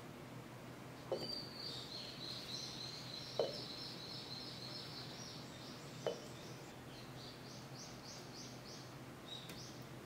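Three light knocks of tongs and dried cherry tomatoes against a glass jar as pieces are dropped in, about a second in, three and a half seconds in and six seconds in. Behind them a bird sings a long run of high, quick chirping notes.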